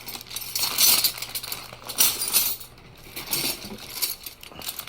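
Steel hand tools (wrenches and sockets) clinking and jangling against each other as they are handled and set down, in irregular bursts with a brief lull about halfway through.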